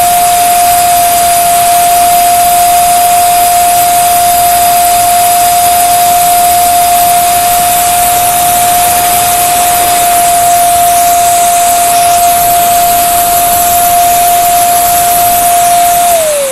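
Electric balloon pump running with a steady high whine and rushing air while inflating a plastic inflatable toy. Near the end it is switched off and the whine falls as the motor spins down.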